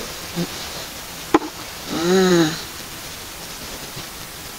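A woman's short drawn-out exclamation, rising then falling in pitch, about two seconds in, over a steady hiss. A single sharp click comes just before it.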